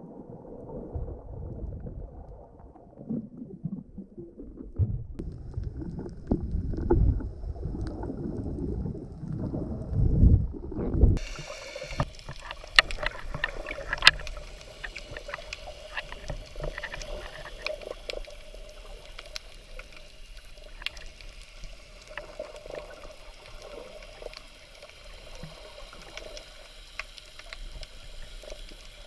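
Water sound picked up by a camera held underwater: muffled low sloshing with uneven bumps for about the first eleven seconds. Then it changes suddenly to a brighter hiss with many scattered clicks and crackles.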